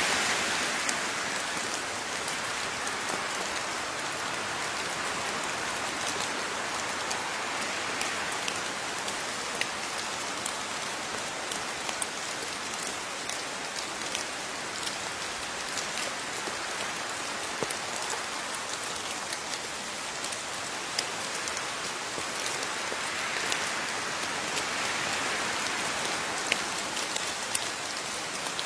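Steady rain falling, with individual water drops heard as sharp little ticks over the continuous hiss; the rain swells slightly near the end.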